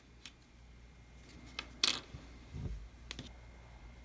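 Small plastic scale-model parts being handled on a cutting mat: a handful of light clicks and taps, the sharpest about two seconds in, followed by a soft thump.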